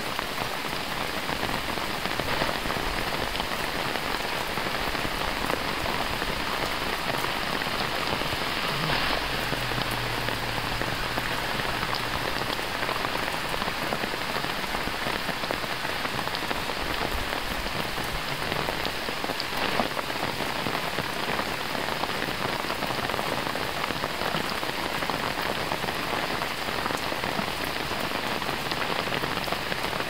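Steady rain falling on forest foliage: an even hiss made up of many fine drop ticks.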